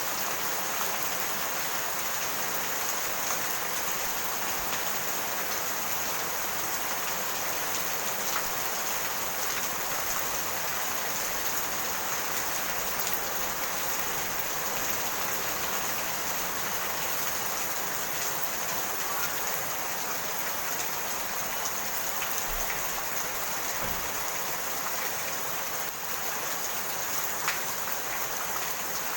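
Steady rain falling and pattering on surfaces, an even hiss with scattered drops standing out.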